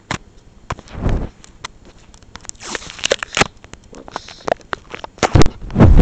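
Knocks and handling noise, then about five seconds in loud, heavily distorted pulses as a Wheelock MT-24-LSM horn strobe starts sounding on its code 3 temporal tone, overloading the microphone.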